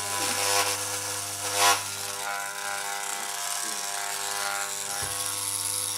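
Corded electric hair clippers buzzing steadily as they cut hair, with one brief louder burst a little under two seconds in.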